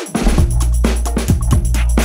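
Background music with a steady drum beat and a heavy bass line. The bass comes back in just after the start.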